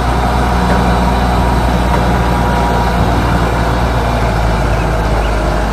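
Diesel engine of a Grove RT530E rough-terrain crane running steadily, an even low drone with no revving.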